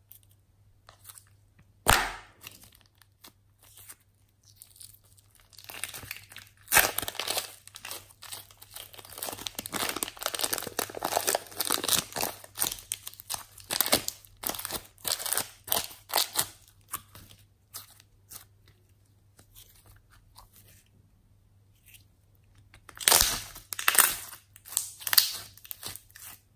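Plastic piping bag crinkling and rustling in a long run of dense, crackly clicks as pink slime is squeezed out of it, after a single sharp click about two seconds in. Near the end, the slime is pressed and squished by hand with a loud cluster of sticky clicks and pops.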